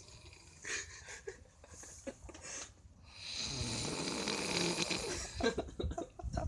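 One long snore, starting about three seconds in and lasting about two seconds, after a quieter stretch.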